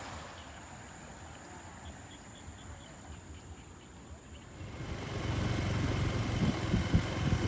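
A steady high insect whine over faint engine noise, then from about five seconds in a motor engine grows loud with wind noise on the microphone.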